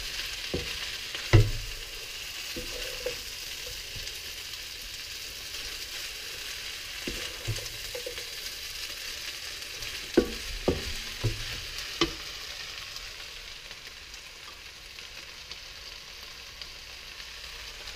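Rice vermicelli with prawns, beef and vegetables sizzling in a non-stick wok as it is stirred and tossed with a wooden spatula: a steady frying hiss. A few sharp knocks of the spatula against the wok cut through it, the loudest about a second in and several more around ten to twelve seconds in.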